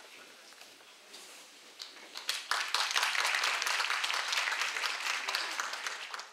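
Audience applause breaking out about two seconds in after a few scattered claps, a dense patter of many hands, then stopping abruptly near the end.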